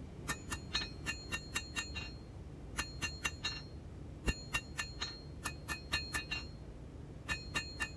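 Hand hammer striking a hot steel slot punch on an anvil in quick runs of light blows: sharp metallic clinks, each with a short ring, in about five bursts of four to eight strikes with short pauses between. This is dressing the punch's tapered end smooth.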